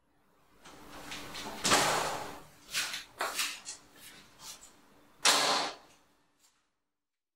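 A glass-panelled door being moved and shut: a long scraping run about two seconds in, a few rattling clicks, then a second loud scrape-and-knock about five seconds in as it closes.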